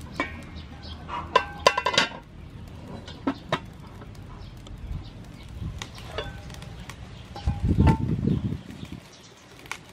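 Aluminium cooking pot and its metal lid being handled on a clay charcoal stove: several clinks and clanks as the lid is set on and later lifted off, with a louder low rumble near the end.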